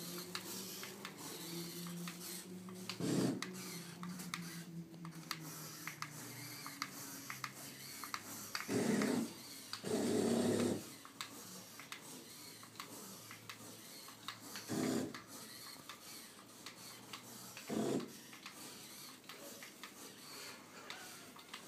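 Remote-control helium shark balloon's small tail motor running in about six short bursts a few seconds apart, as the tail fin is swung side to side to swim it through the air.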